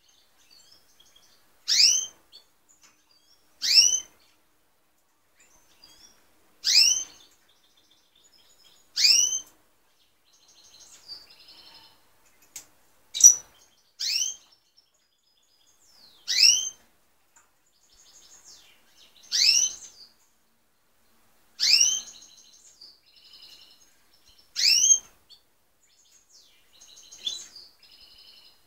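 European goldfinches calling: a loud, short, rising whistle repeated about every two to three seconds, with quieter twittering in between.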